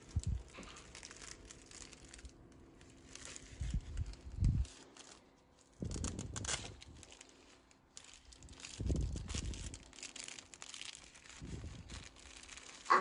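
Soft cloth baby book being handled, its crinkly fabric pages rustling in several short bursts as they are turned and squeezed.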